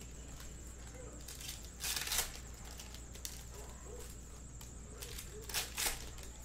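Foil wrappers of 2021 Bowman Sapphire baseball card packs being torn open and crinkled by hand: two short bursts, about two seconds in and again near the end.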